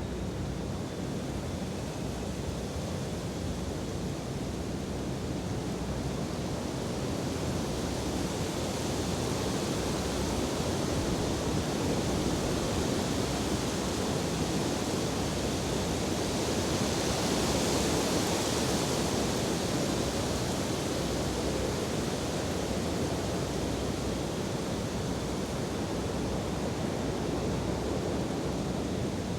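Wind blowing steadily with a full rushing hiss, swelling to a stronger gust past the middle and then easing back.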